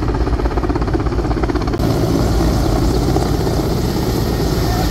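Mi-8 helicopter flying low overhead as it comes in to land: a loud, rhythmic rotor beat over the steady noise of its twin turboshaft engines.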